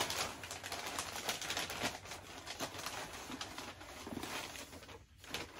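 Packing paper rustling and crinkling as it is handled and pulled out of a shipping box, in a dense crackle that eases off near the end.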